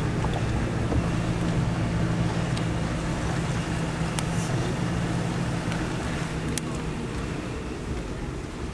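An engine running steadily with a low hum that fades out about seven seconds in, over a constant rushing noise.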